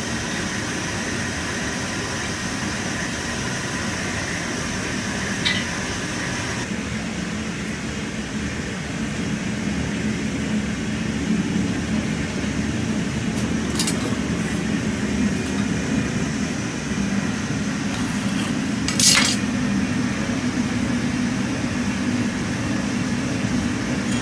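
Steady mechanical drone in a sand-casting workshop, with about three light metallic clinks from the metal moulding flasks as sand is packed into one. The last clink, near the end, is the loudest.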